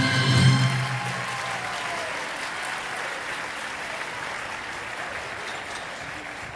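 Audience applauding as the music's final chord dies out in the first second; the applause then slowly fades.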